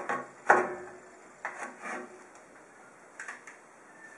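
A few short knocks and rubbing noises from a plastic plug-in charger and its cable being handled against a welding machine's metal chassis, the loudest knock about half a second in.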